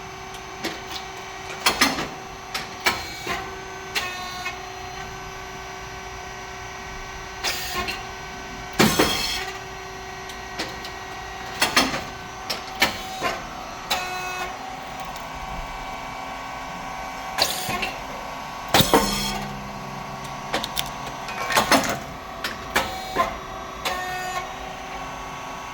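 SYP5804T puffed rice cake machine running production cycles: a steady hum from its hydraulic motor and pump, with frequent sharp mechanical clacks. Twice, about ten seconds apart, comes a loud short burst as the heated titanium-coated moulds release and the rice puffs into chips.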